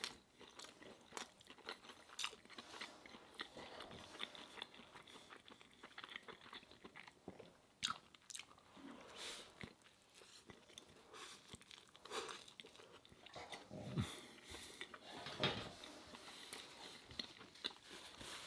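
Faint close-up sounds of a person biting and chewing a ciabatta breakfast sandwich, with many small irregular clicks and crackles of mouth and bread.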